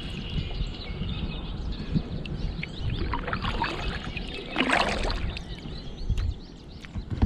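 Water sloshing against a kayak over a low steady rumble, with a brief splash about five seconds in.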